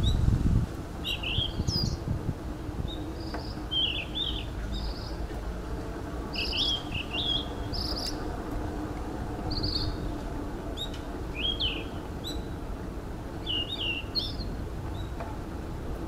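Small birds chirping and trilling repeatedly in the trees over a steady low rumble of wind and rolling noise from the moving bicycle. A brief low thump comes at the very start.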